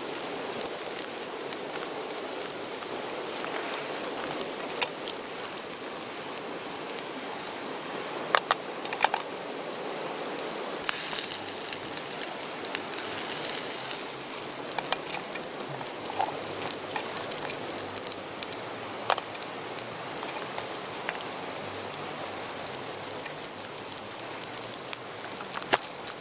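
Square slices of sausage sizzling and spitting in a mess-tin frying pan on a gas camping stove: a steady frying hiss with occasional sharp pops.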